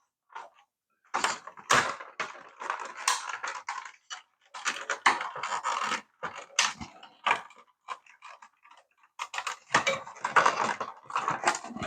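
Plastic clicking and rattling as the clip-on wheels of a toy RC car are worked and prised off, in three bursts of quick clicks with short pauses between.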